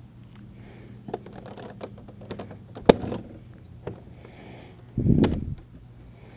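Rear trunk of a Honda Gold Wing trike being unlatched and opened: scattered clicks and one sharp click, then a loud dull thump as the lid swings up, about five seconds in. A steady low hum runs underneath.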